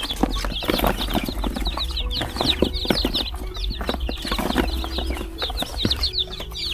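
A brood of newly hatched chicks peeping busily: many high, downward-sliding cheeps, several a second, overlapping. Scattered light knocks run through it.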